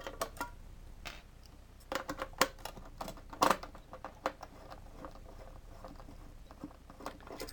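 Scattered small clicks and taps as the cover screws are undone and handled on a metal LED floodlight housing, with the sharpest clicks about two and a half and three and a half seconds in.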